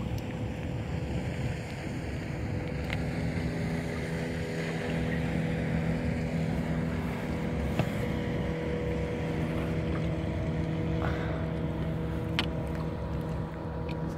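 Motorboat engine running with a steady, even hum as the boat tows an air mattress on a line.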